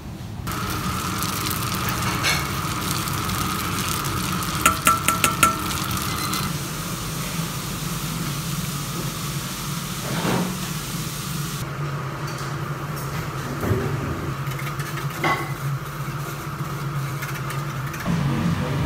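Commercial kitchen background noise: a steady hum and hiss of running equipment, broken by a quick run of about five sharp metallic taps about five seconds in and a few single knocks and clinks later.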